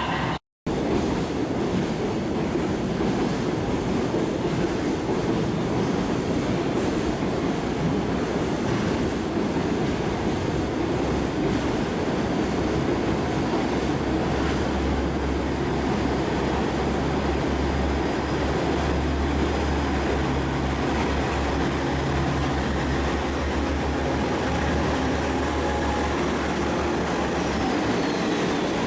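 KiHa 47 diesel railcar at the station, its diesel engine and train running noise steady, with a brief break in the sound just after the start. From about halfway in the engine rumble grows deeper and stronger, until near the end.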